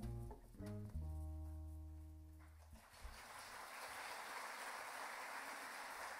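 Closing bars of a tango played live on plucked strings and double bass: a few short chords, then a held final chord that fades out about two and a half seconds in. A steady hiss of audience applause follows.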